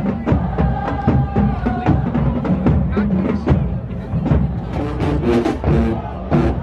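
Marching band playing, driven by heavy drum and percussion hits with horns holding and shifting notes over them.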